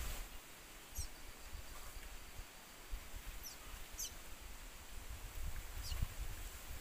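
A small bird giving four short, thin, high chirps, each dropping steeply in pitch, over low bumps and rustling from handling close to the microphone.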